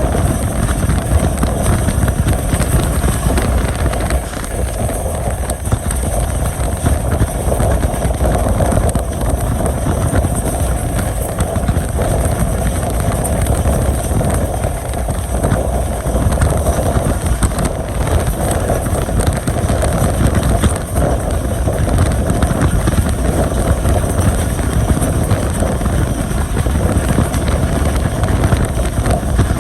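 Passenger train running along the track: a steady, loud rumble of wheels and running gear with a constant hum.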